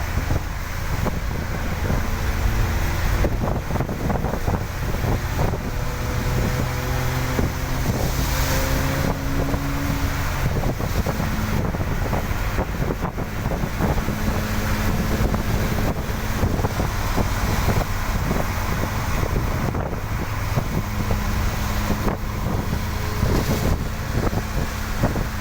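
A vehicle driving on a rain-wet road: a steady engine hum under a continuous rush of tyre and rain noise. The engine pitch shifts several times in the first ten seconds, then holds steady.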